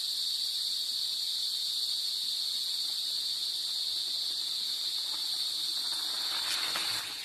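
Insects calling in a continuous chorus: a steady, shrill buzz that holds an even pitch throughout.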